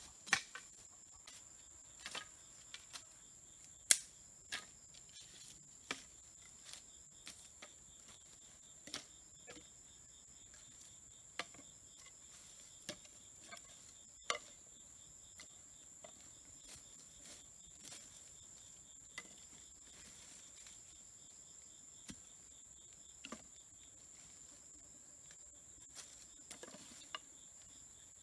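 Steady high-pitched chorus of crickets, with scattered sharp clicks and knocks every second or two; the loudest knock comes about four seconds in.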